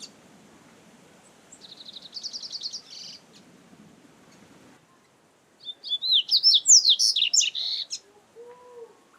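Double-collared seedeater (coleiro) singing: a short fast trill of repeated high notes about two seconds in, then a louder phrase of quick sweeping notes about six seconds in.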